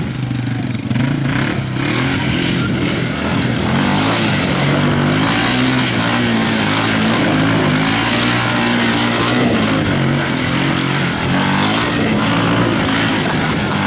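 Yamaha quad's engine revving up and down over and over as it is spun in tight donuts on grass.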